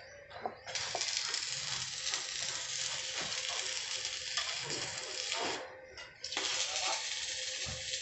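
Electric arc welding on steel truss members: the arc crackles and hisses steadily, is broken off about five seconds in, and is struck again less than a second later.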